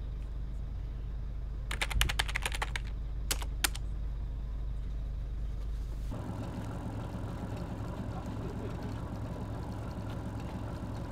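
Steady low hum inside a car cabin, with two quick runs of sharp clicks about two and three and a half seconds in. About six seconds in, the hum changes to a different steady low mechanical hum.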